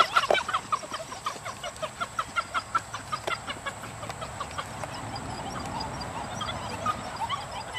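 A rapid series of short, high-pitched chirping calls, several a second, fading after the first few seconds.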